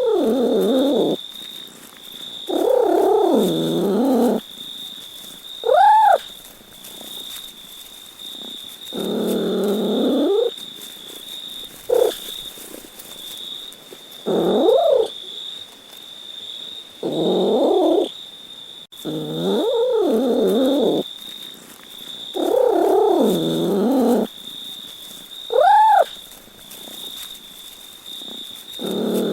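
A domestic cat meowing again and again, with drawn-out, wavering meows of a second or two alternating with short mews that rise and fall. A steady high-pitched whine runs underneath.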